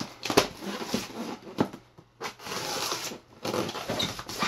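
Styrofoam shipping box being cut free of its packing tape with a small knife and pulled open. Irregular rubbing and scraping of tape and foam, with sharp clicks about half a second and a second and a half in.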